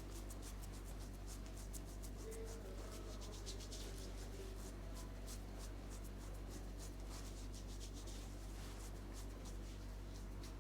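Close-miked barber work on hair: scratchy rubbing with many quick, crisp ticks coming irregularly several times a second, over a steady low hum.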